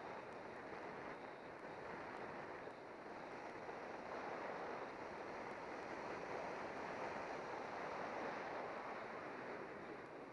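Steady rush of wind over the microphone of a bicycle-mounted camera on a fast downhill run, mixed with tyre noise on asphalt, swelling slightly partway through.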